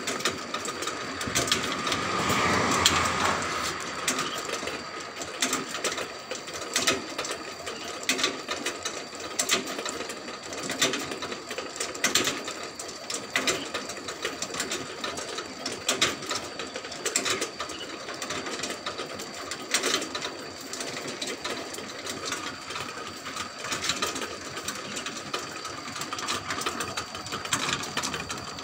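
Motor-driven charcoal rotisserie turning its spits: the chain and sprocket drive clicks and rattles steadily, with a sharp click roughly once a second over a steady mechanical hum.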